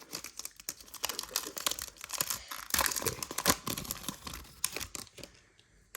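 Topps Merlin trading-card pack wrapper being torn open and crinkled in irregular crackling bursts, dying away near the end.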